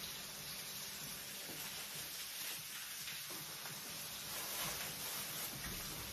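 Steady faint hiss of vegetables frying in a pan on a gas hob, with a few faint knocks of kitchen work.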